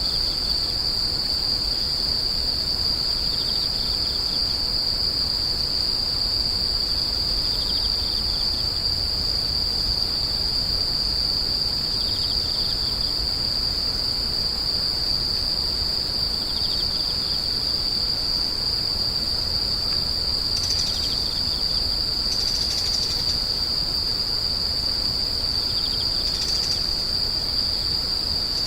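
Grass insects trilling in one continuous, high-pitched, unbroken drone. A fainter, lower chirp comes back about every four to five seconds.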